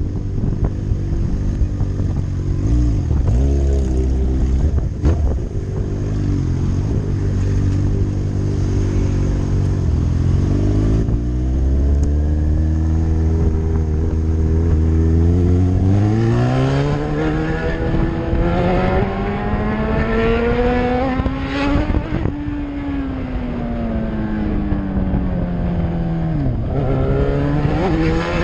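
Yamaha R6's inline-four engine while riding: running at a low, steady pitch for the first half, then revving up in a long rising pull, falling in pitch after it rolls off about two-thirds through, and picking up again near the end.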